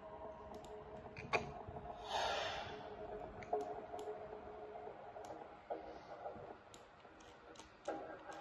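Faint, irregular clicks from a computer's mouse and keys, over a low steady background.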